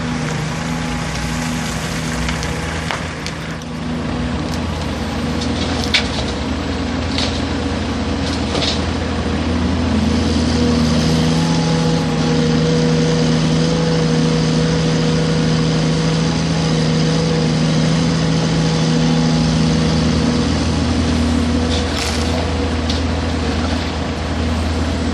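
Caterpillar 336 excavator's diesel engine running steadily while it works, growing louder for about ten seconds in the middle. A few sharp knocks come through, the clearest about six seconds in and again near the end.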